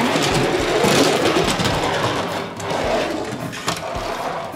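Small plastic toy train pushed by hand, its wheels rolling over a hard plastic surface with a steady, dense whirring rattle.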